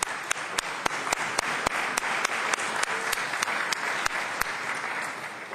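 A large room of legislators applauding, a steady wash of clapping with individual sharp claps standing out above it, easing off at the very end.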